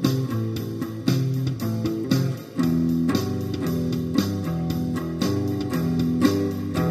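Instrumental rock music: a repeating plucked guitar riff over steady drum hits, with a fuller bass line coming in about two and a half seconds in.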